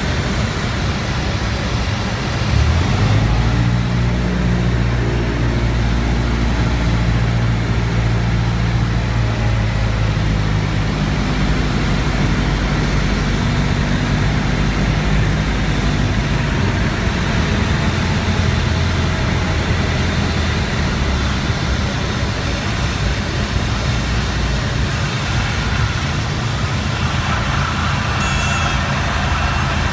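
Cessna 172's piston engine and propeller droning, heard from inside the cockpit through final approach and landing, with air rushing past. The engine note steps up about two seconds in and changes pitch several times along the way, and a thin high whistle comes in near the end.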